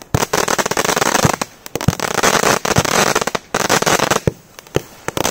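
Aerial firework battery firing: rapid sharp pops and bangs mixed with dense crackling from bursting crackle stars, coming in several volleys with short gaps between them.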